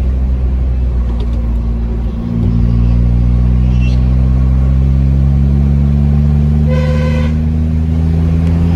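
Volkswagen Polo's engine and exhaust heard from inside the cabin, pulling steadily. About two seconds in it gets louder and then rises slowly in pitch as the car accelerates in gear. A short car horn toot sounds about seven seconds in.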